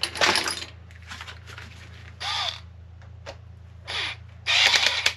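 Small metal hex drivers clicking and scraping against a screw on an RC car's rear hub as the screw is tightened: several short clatters, with a brief squeak about two seconds in.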